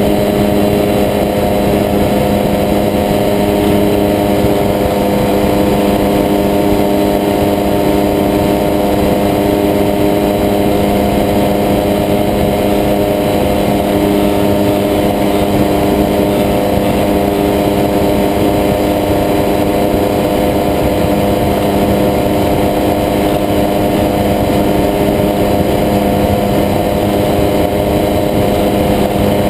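Weight-shift microlight trike's engine and propeller droning steadily in flight, holding one even pitch with no revving up or down.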